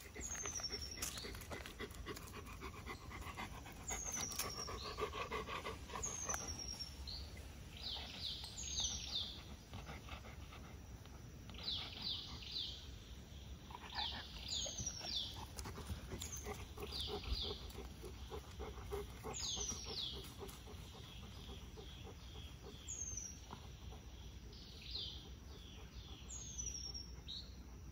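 Golden retriever panting, with wild birds calling: a high whistled note that slides downward, repeated every couple of seconds, and quick clusters of short high notes.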